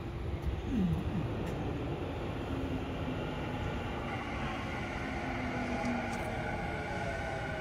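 Yokohama Minatomirai Railway Y500 series train arriving and braking over a low rail rumble. Its Hitachi IGBT-VVVF inverter gives a whine of several tones that grows clearer about halfway through, while some of the tones fall in pitch as the train slows.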